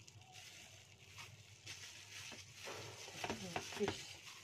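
Thin plastic glove crinkling and rustling as a gloved hand rubs wet spice paste over a whole tilapia on a plate. About three seconds in comes a short, gliding, voice-like pitched sound, the loudest part.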